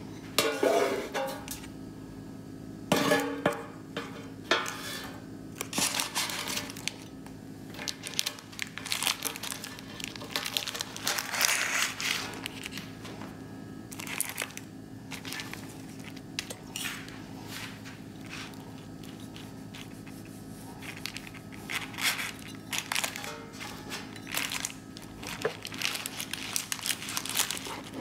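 Baking parchment crinkling and rustling as a baked banana loaf is lifted out of its metal loaf pan. A few sharp knocks of the metal pan stand out, the loudest about three seconds in, over a steady faint low hum.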